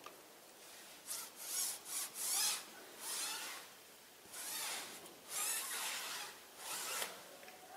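A foam applicator pad rubbed over a tyre sidewall, wiping on tyre dressing in about seven separate strokes, each lasting about half a second.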